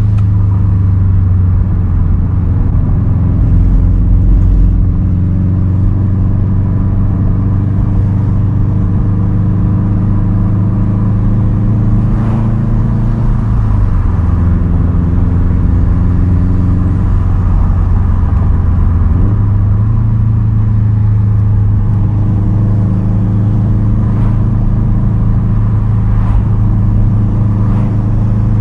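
2010 Subaru WRX STI's 2.5-litre turbocharged flat-four running through a titanium single straight-pipe exhaust while cruising, a steady drone whose pitch drops about halfway through and climbs back a few seconds later.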